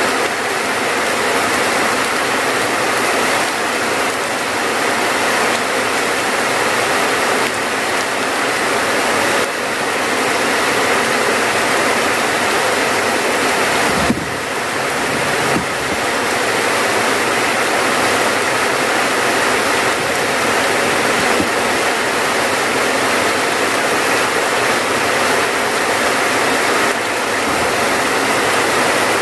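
Steady rainfall, an even, dense hiss of falling water, with a short low thump about halfway through.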